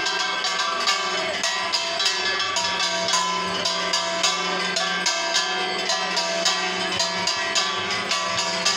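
Metal bells and hand cymbals struck in a fast, steady rhythm, their ringing tones overlapping, with a steady low tone underneath: devotional arti percussion.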